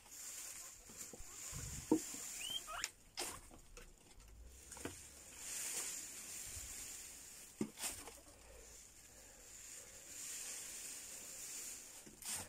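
Guinea pigs moving and feeding among dry willow twigs and wood shavings: rustling and pattering, with scattered sharp clicks and ticks.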